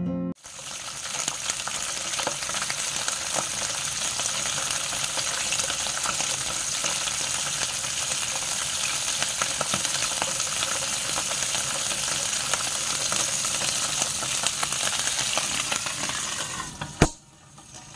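Pieces of hairtail sizzling in a ridged grill pan: a steady frying hiss with many small crackles and pops. About seventeen seconds in, a pan lid knocks down onto the pan once, and the sizzling drops to a faint muffled hiss.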